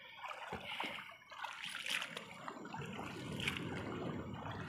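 Shallow river water splashing and trickling, with a few short splashes early and a steadier trickle from about halfway through.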